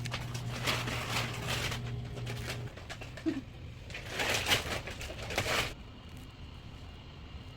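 Bird calls played back as a sound effect, in two dense bursts: one at the start lasting about two and a half seconds, and another about four seconds in lasting under two seconds.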